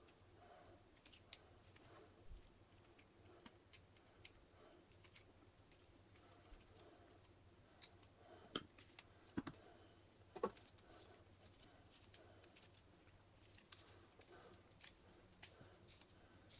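Scattered faint clicks and snips of a robot vacuum's brush roll being worked on by hand: hair being cut away from the roller and its plastic parts and bearings being pulled apart.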